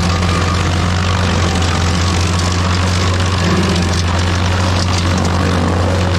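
Rayco RG50 stump grinder's engine running steadily at speed, a deep, even drone with a rough hiss of cutting over it.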